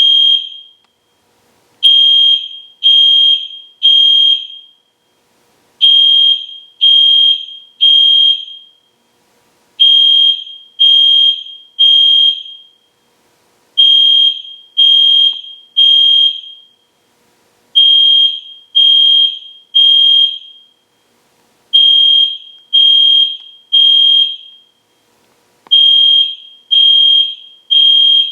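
EST Genesis fire alarm horn sounding at full volume in groups of three loud, high beeps about a second apart with a short pause between groups: the temporal-three evacuation signal, repeating steadily.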